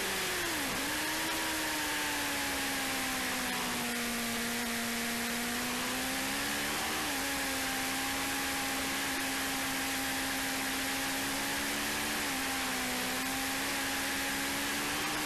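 Motorcycle engine heard on board under steady wind rush. Its note drops sharply about a second in, then holds and shifts slightly with the throttle.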